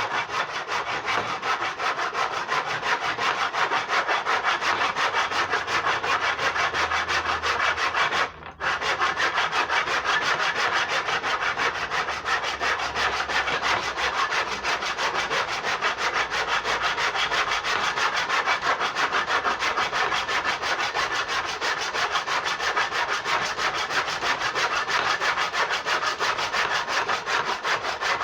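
Hand saw cutting in steady, rapid back-and-forth strokes, with one brief pause about eight seconds in.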